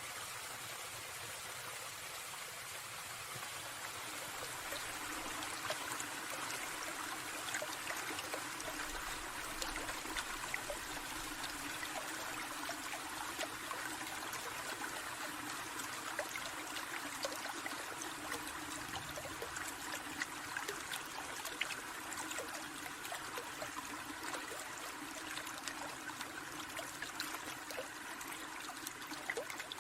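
Small forest stream trickling steadily over stones, with many small splashes and drips scattered through it.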